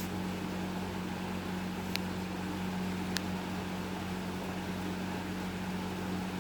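A 2001 Hampton Bay Carriage House 52-inch, five-blade ceiling fan running with a steady motor hum and an even rush of air. Two faint ticks come about two and three seconds in.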